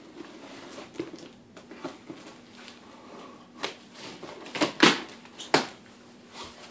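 Utility knife slitting packing tape on a cardboard box, then the cardboard flaps being pulled open and the tape tearing free, with a few sharp cracks and crackles a little after halfway.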